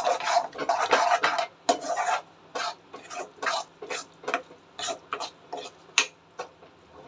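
Steel spoon scraping and stirring through mashed eggplant bharta in a kadai as it fries on high flame. Quick, nearly continuous scraping for about two seconds, then separate strokes about two a second.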